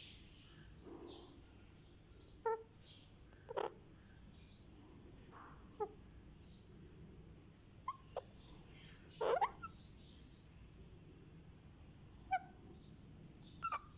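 Indian ringneck parakeet chick, about a month old, giving short, soft squeaky chirps every second or few, about eight in all, the loudest a little past the middle.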